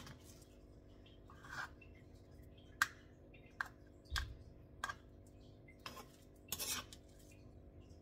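A spoon scraping and tapping against a stone mortar and a plastic measuring cup as sticky mashed banana is scooped and packed: scattered clinks and short scrapes, with a dull thud about four seconds in and a longer scrape near the end.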